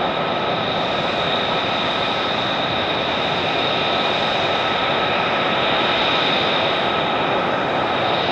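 F-35A Lightning II's F135 turbofan idling: a steady jet rush with several high, steady whining tones.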